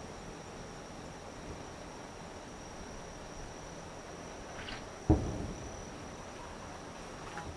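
A distant aerial fireworks shell bursting: one boom about five seconds in, with a rumbling echo trailing off over about a second. A steady high insect trill runs underneath.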